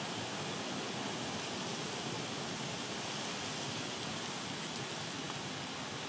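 A steady, even hiss with no distinct calls, knocks or other events.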